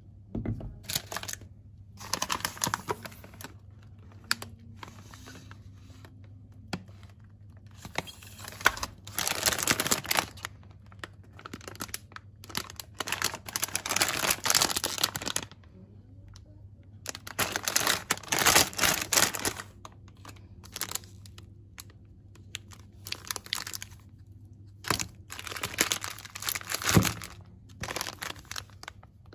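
Plastic snack wrappers and foil food packets crinkling as hands pick them up and move them, in several bursts a second or more long with pauses between.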